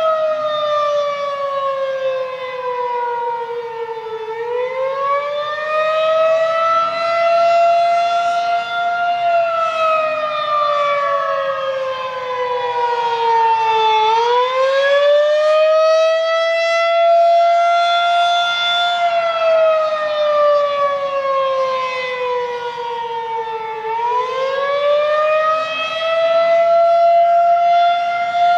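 Federal Signal 2001-SRN outdoor warning siren sounding the attack signal, a repeating wail. Its pitch slides down for about five seconds, climbs back over about four seconds, and holds briefly at the top before falling again, about every ten seconds.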